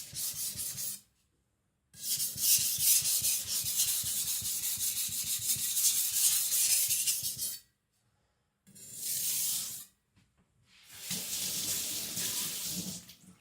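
Steel cleaver edge scraping on a whetstone in quick back-and-forth strokes, in three spells: a long one of about five and a half seconds, a short one, then another of about two seconds. The strokes are light, made to work down the burr.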